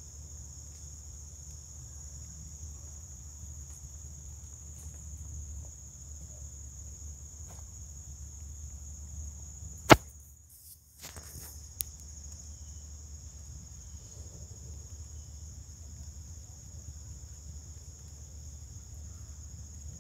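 Steady high-pitched chorus of insects such as crickets over a low rumble. About halfway through a sharp, loud click cuts the sound out for about a second, and a smaller click follows.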